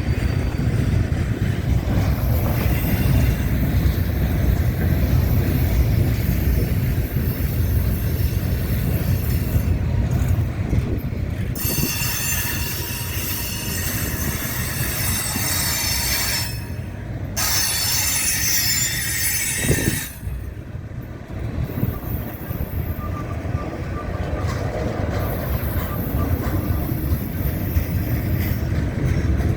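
Freight cars of a BNSF manifest train rolling past with a steady low rumble. High-pitched wheel squeal comes and goes, loudest about halfway through.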